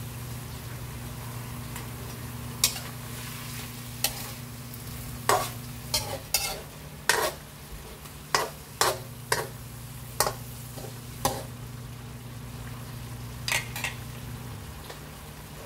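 Metal spatula scraping and clinking against a stainless steel wok while stirring sautéing pork pieces in hot fat. About a dozen sharp clinks come between about 2.5 and 11 seconds in, and a pair more near the end, over a steady low hum and faint frying hiss.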